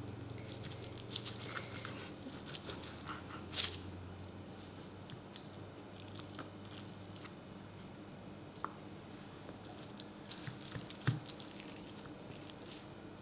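Kitchen knife slicing through rolled puff pastry and tapping on a plastic cutting board: scattered faint clicks and taps, with a sharper tap about three and a half seconds in and another near eleven seconds. A steady low hum runs underneath.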